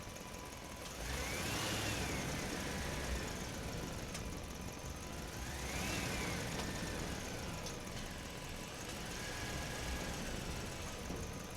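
A motor speeding up and slowing down three times, each time with a rising then falling whine, over a steady hum.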